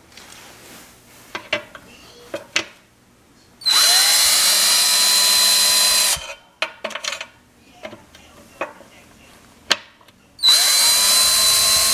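Yellow DeWalt cordless drill with a 13 mm socket spinning out the small rim bolts of a three-piece wheel. The bolts were already loosened by hand because the drill isn't strong enough to break them free. There are two runs of about two seconds each, one about four seconds in and one near the end, and each spins up quickly to a steady whine. Light metallic clicks come between the runs.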